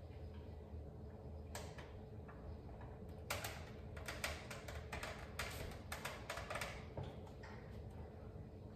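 A string of light plastic clicks and rattles, sparse at first and thickest through the middle, from power cords and plugs being handled at a wall outlet. A low steady hum runs underneath.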